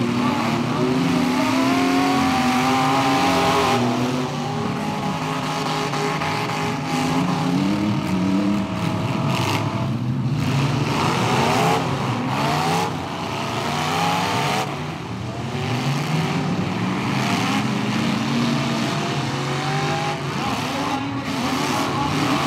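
Several demolition derby pickup trucks' engines running and revving at once, their pitch repeatedly rising and falling as they accelerate and back off.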